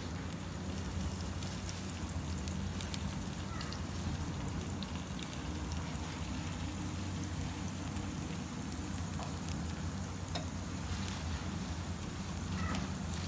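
Hot oil sizzling steadily in a frying pan as breaded sausage and cheese skewers shallow-fry to brown, with scattered small pops.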